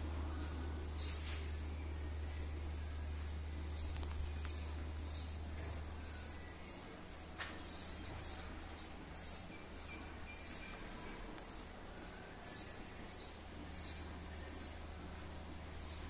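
A small bird calling in a long series of short high chirps, about two a second, over a low steady rumble that weakens about six and a half seconds in. Two sharp clicks, about a second in and again near the middle.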